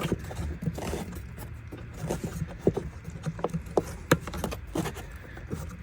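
Irregular small clicks and knocks of a plastic valve and its clip being twisted and worked off a mounting bracket by hand in a car's engine bay, with one sharper knock about four seconds in.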